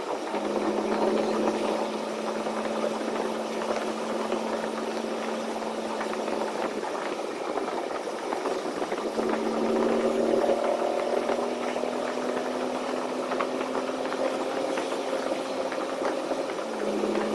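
Semi truck's engine running steadily on the highway with a constant drone and light rattles. The drone's pitch steps up a little about nine seconds in and drops back near the end.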